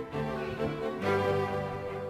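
Background music with bowed strings, held notes changing about every half second.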